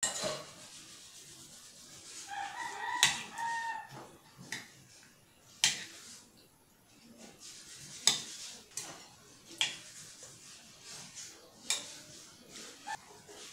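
Metal spoon scraping and clinking against a glass bowl while stirring chicken pieces in marinade, with sharp clinks every couple of seconds and soft squelching of the meat between them. A wavering pitched call sounds in the background about two to four seconds in.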